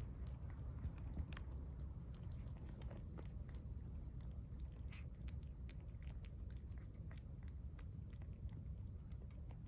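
A cat eating, with faint, irregular chewing clicks over a steady low rumble.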